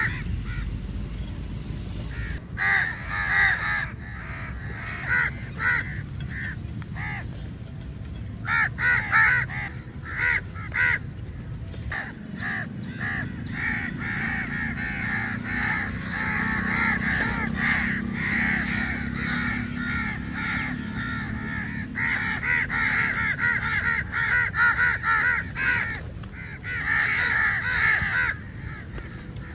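A flock of crows cawing, harsh calls in short runs at first, then many birds calling over one another almost without a break for the second half.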